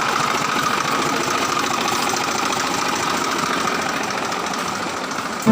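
An engine running steadily with a fast, even beat, fading slightly near the end.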